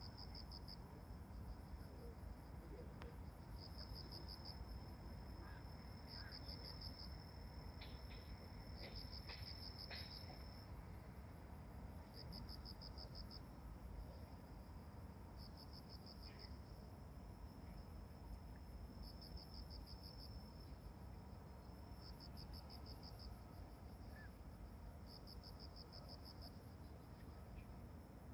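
Insects singing: a high trill that comes in bursts of about a second, roughly every three seconds, over a steady high note and a fainter, faster chirring higher up, with a quiet low hum of background noise underneath.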